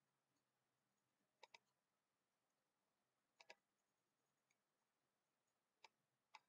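Faint computer mouse clicks over near silence: two quick double-clicks, then two single clicks near the end.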